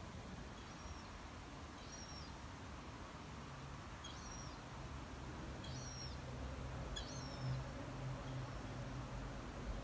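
A small bird chirping: five short, high calls a second or two apart, over faint outdoor background noise. A low steady hum joins about three seconds in.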